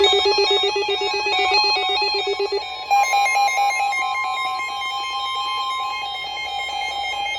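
Emergency Alert System alert tones. A rapidly pulsing electronic tone gives way, about three seconds in, to a steady held alert tone that marks the start of a new warning.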